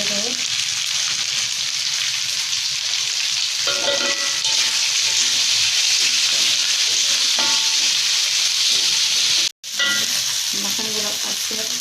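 Coarsely ground spice paste with bruised lemongrass and bay leaves sizzling as it fries in hot oil, a steady frying hiss as the paste is cooked until fragrant. The sound cuts out for an instant about two-thirds of the way through.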